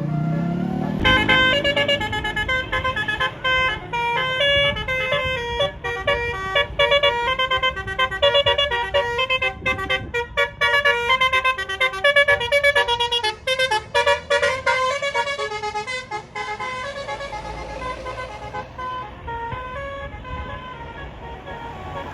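A bus's 'basuri' telolet musical horn playing a tune in quick stepped notes, after a short rising sweep at the start. It fades out a few seconds before the end.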